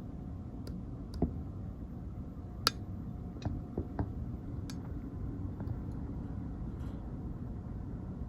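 Scattered sharp clicks and light knocks, about eight of them, with the loudest a little under three seconds in, over a steady low rumble.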